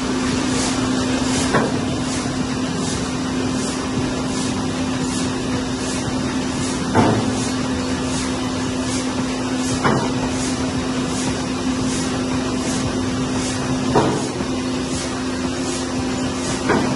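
Royo Machinery TYMB750 hand-fed die cutting and foil stamping platen running: a steady motor hum with a fast, even ticking, and a heavier knock every three to four seconds as the platen strokes.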